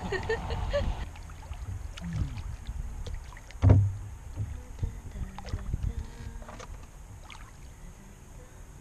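Canoe being paddled: irregular knocks of the paddles against the hull over a low rumble, with one loud thump a little under four seconds in.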